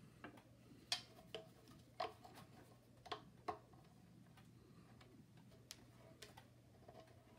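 Irregular light clicks and taps of a screwdriver and fingers on a small air compressor's metal pulley and rubber belt, as the belt is levered into the pulley grooves. The clicks come in a cluster in the first few seconds, then thin out, over a faint steady low hum.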